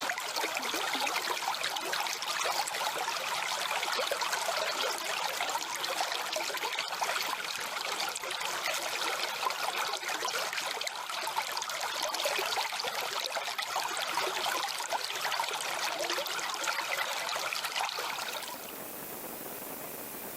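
Stream water flowing and trickling, a busy splashing rush; about 18 seconds in it cuts to a quieter, smoother, even hiss of water.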